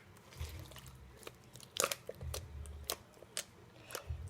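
Slime being kneaded and squeezed by hand while dye is worked in, giving irregular sticky pops and clicks along with a few soft low thumps.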